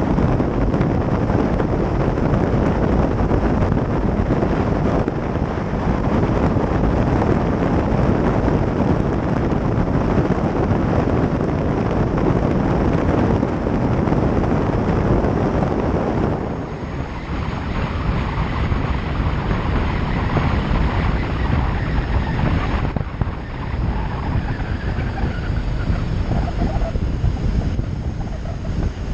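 Wind buffeting the microphone of a camera mounted on the outside of a moving vehicle, a loud, steady rumble with driving noise beneath it. The noise thins out a little about two-thirds of the way through.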